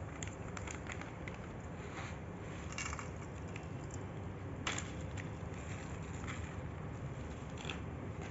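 A clear plastic bag crinkling in short crackles as it is handled and pulled away from lumps of multani mitti (Fuller's earth clay) on a steel plate. The sharpest crackle comes a little past halfway, over a steady low hum.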